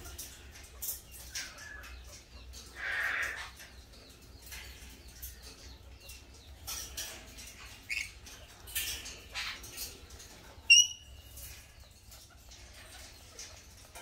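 Sulphur-crested cockatoo eating soft fruit from a hand: scattered small clicks and nibbling sounds of its beak in the fruit. About three-quarters of the way through, one short, sharp, high bird call is the loudest sound.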